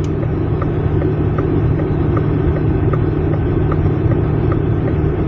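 Steady low rumble of road and running noise inside a car's cabin as the self-driving robotaxi moves off, with a faint, even ticking about two to three times a second.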